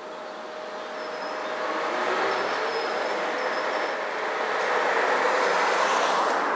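Electric trolleybus approaching up the street, its traction motor giving a whine that rises in pitch, over tyre and traffic noise that grows steadily louder as the bus and a car come closer.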